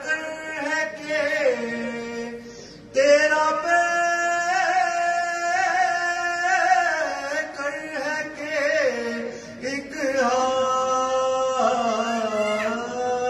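Male voice reciting a devotional naat in long, held melodic phrases, with a short gap about three seconds in before the next phrase comes in loudly.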